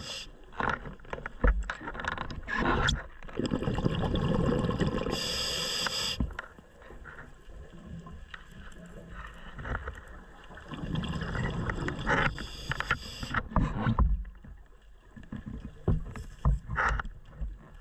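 A scuba diver's regulator breathing, heard underwater. Bubbling exhalations come in waves, with a short hiss about five seconds in and scattered clicks and knocks.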